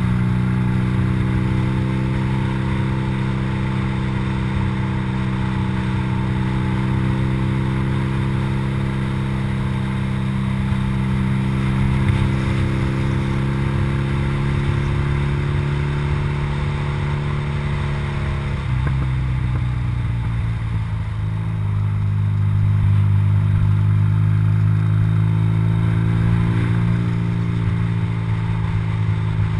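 BMW R80RT's air-cooled flat-twin boxer engine running at steady cruising revs, with wind rush. About two-thirds of the way through the engine note drops suddenly, then holds steady at the lower pitch and slightly louder.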